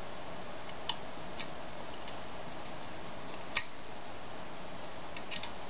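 Scattered light clicks and ticks of small metal parts being handled: a governor spring and throttle linkage being hooked into place on a small engine. The clicks come irregularly, the sharpest about three and a half seconds in, over a steady hiss.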